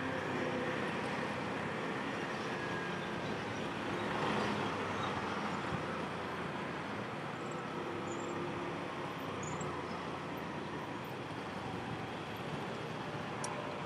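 Steady road and engine noise of a motorcycle being ridden through traffic, with a faint falling whine near the start.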